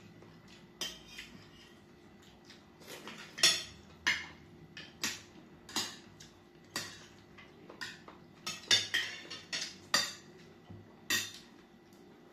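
Fork and spoon clinking and scraping against glass dinner plates while eating, a string of irregular sharp clinks.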